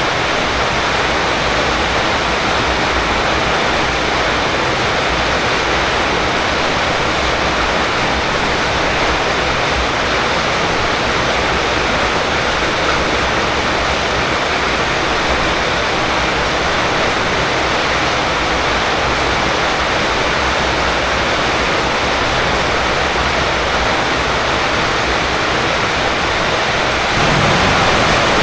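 Heavy rain falling, a steady loud hiss that gets a little louder near the end.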